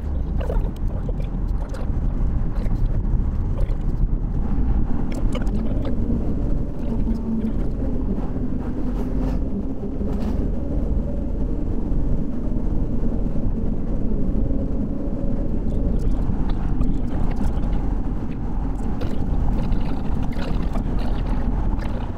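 Steady low rumble of a moving vehicle, with a faint hum that shifts in pitch now and then.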